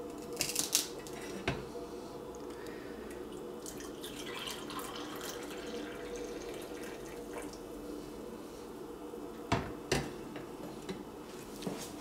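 Hot coffee poured from a glass carafe into a mug, a steady liquid stream filling the cup. Clinks as the carafe is lifted off the warming plate near the start, and two sharp knocks as it is set back down about ten seconds in.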